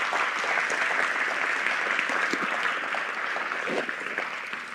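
Audience applauding, the clapping fading off near the end.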